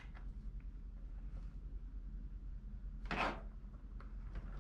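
Faint handling of plastic cable connectors as an extension lead is pushed onto a power switch unit's wiring: small clicks, plus one short rustle about three seconds in.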